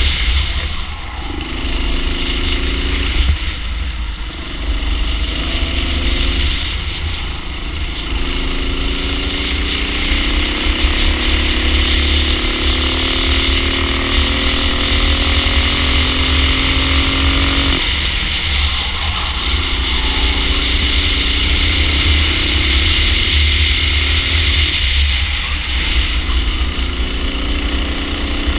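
Racing kart engine heard from onboard at full race pace. Its pitch dips and recovers several times through the first corners, climbs steadily for about ten seconds on a long stretch of throttle, drops suddenly as the driver lifts, then climbs again, over a steady low rumble.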